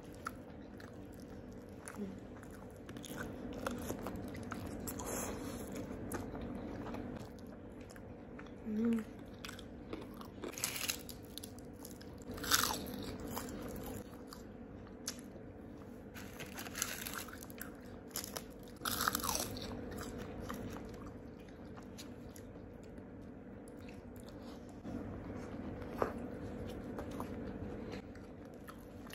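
Someone eating crispy fried chicken coated in gulai curry sauce: bites and crunching of the battered skin, with chewing between them and a few sharper crunches scattered through.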